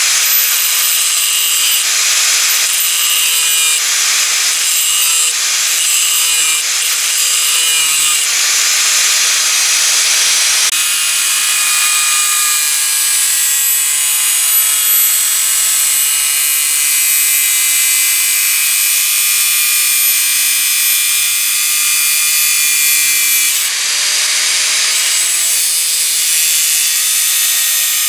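Electric angle grinder running with its abrasive disc ground against steel: a loud, steady, high-pitched grinding whine whose tone shifts as the load changes, notably about 11 s and 24 s in.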